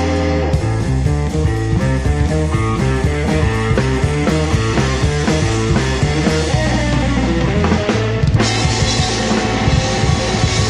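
Live rockabilly band playing loud without vocals: fast stepping guitar and bass runs over drums, then about eight seconds in a cymbal crash and a held chord.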